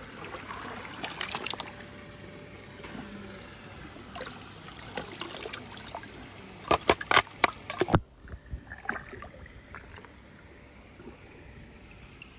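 Water sloshing and trickling, with a quick run of sharp clicks or knocks about seven seconds in, the loudest sounds here; the background then cuts off abruptly to something quieter.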